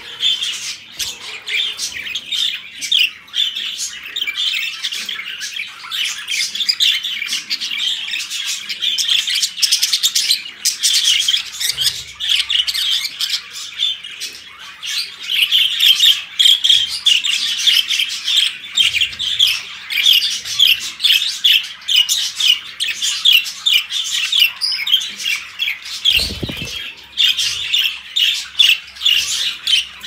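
Budgerigars chattering: a dense, rapid stream of warbling chirps and squawks that grows louder and busier about halfway through, with a brief flutter of wings at the start.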